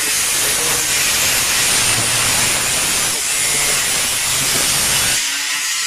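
Power saw cutting aluminium window-frame profiles: a harsh, even noise that stops abruptly a little over five seconds in.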